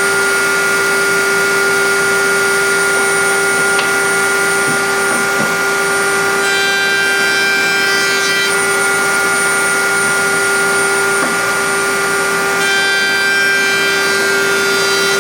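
Router running steadily in a horizontal router table while a beading cutter makes passes along a wooden workpiece. Twice, for about two seconds each, a higher tone joins the steady whine while the cutter is in the wood.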